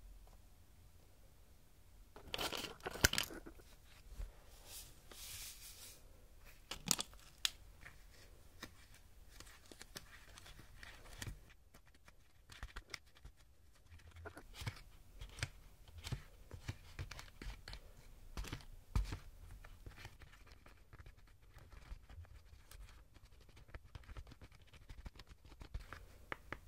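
A foil-lined powder packet torn open about two seconds in, with crinkling as it is handled and emptied. From about eleven seconds on, many small clicks and scrapes of a small plastic spoon stirring cake powder and water in a plastic mould tray.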